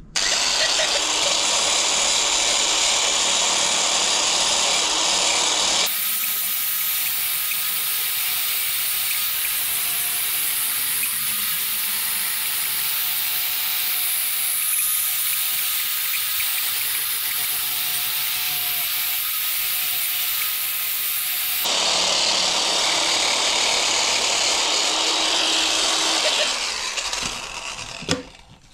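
An electric power tool running and working wood, a steady loud whirring grind. The sound changes abruptly twice and dies away near the end.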